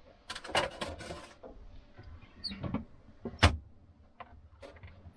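Clattering and knocking of cooking gear being packed into a wooden campervan cupboard under the counter, with a run of rattles early and a single sharp knock about three and a half seconds in.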